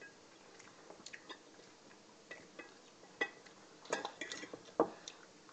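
Scattered light clinks and taps of cutlery against a plate, a few sharper ones past the middle.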